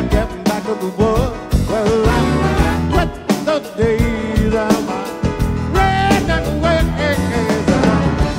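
Live band playing an upbeat piano-led rock-and-roll song, with a voice singing, heard as the musicians' in-ear monitor mix with very little crowd noise.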